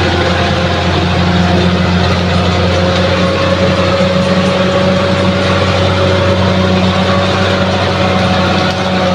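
Bulldozer's heavy diesel engine running steadily, its pitch rising slightly a few seconds in and then holding.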